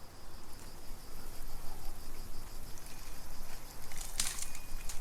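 Small fire of tinder and twigs catching and crackling, with two sharp snaps near the end, while an insect chirps in a fast, even pulse in the background.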